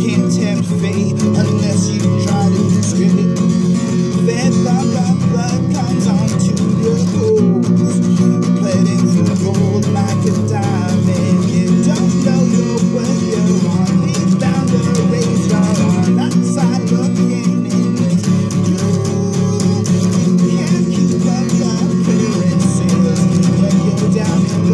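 Acoustic guitar strummed in a steady chord progression, the chords changing every few seconds.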